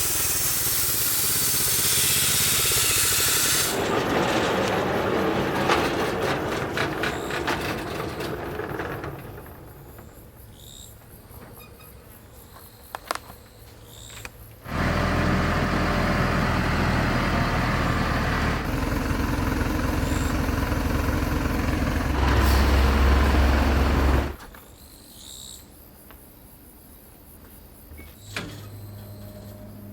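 Homemade band sawmill running, its engine and blade making a steady mechanical noise. The sound drops and returns abruptly several times, hissier at first and later a loud low hum.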